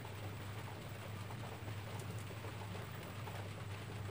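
CRT television's speaker hissing with untuned static while the set auto-searches UHF channels, a steady even hiss with a low hum underneath.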